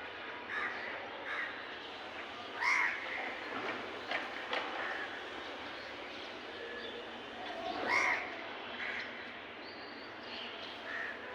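Crows cawing at a feeding spot: a few short, separate caws, the two loudest about three seconds and about eight seconds in, over a steady background hiss.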